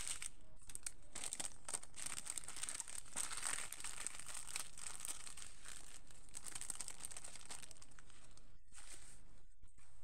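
Crinkling and rustling of a diamond-painting canvas, paper with a plastic protective film, being folded up by hand, thinning to a few sparser rustles near the end.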